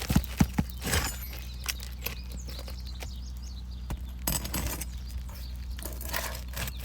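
Metal roof snake worked under asphalt shingles to pry out a roofing nail: a few sharp knocks and clicks in the first second, scraping around a second in, then more clicks and scrapes around four and six seconds in.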